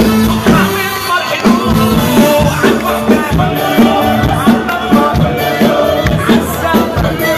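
Loud amplified music from a concert sound system, with a steady beat and a singing voice.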